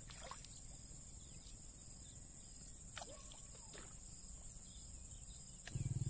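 Insects, crickets or similar, droning steadily at a high pitch, with a few faint short chirps. A low, rapid pulsing sound starts just before the end.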